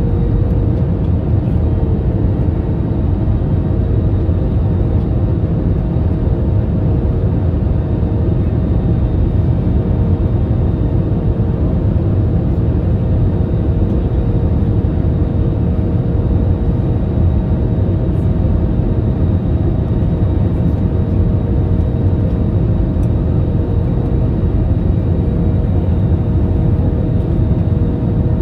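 Airliner cabin noise on final approach: a steady low rumble of engines and airflow, with a few faint steady whining tones above it.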